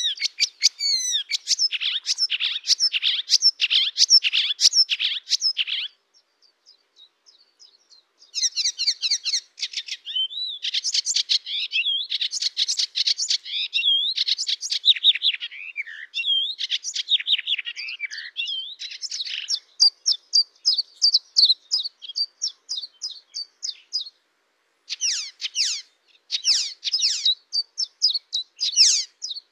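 Warbler singing: long runs of fast, scratchy, high-pitched notes delivered rapid-fire, broken by a pause of about two seconds some six seconds in and a brief one near the end.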